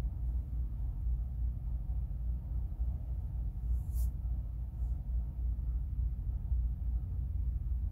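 A steady low rumble, with a brief faint hiss about four seconds in.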